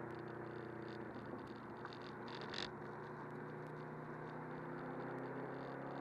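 Subaru WRX turbocharged flat-four engine running at a steady cruise, with tyre and road noise, heard from inside the cabin. Small rattling ticks come and go throughout, with a brief louder rattle about two and a half seconds in.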